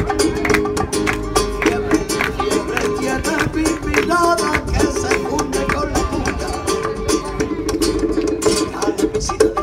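Spanish acoustic guitar strummed in a fast, driving flamenco-rumba rhythm, played live.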